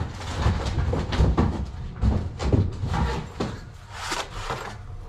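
Irregular knocks, bumps and rustling of handling and moving about, as a metal electrical back box is fetched and brought up to the wall.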